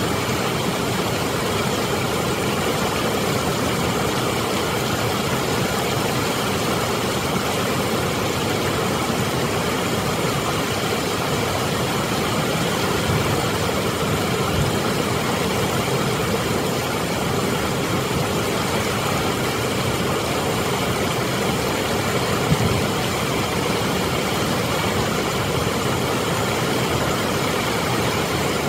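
Water pouring over a dam spillway and rushing through rapids: a loud, steady rushing noise that holds even throughout.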